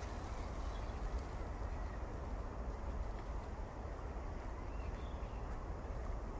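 Outdoor background: a steady low rumble with a few faint, short, high bird chirps.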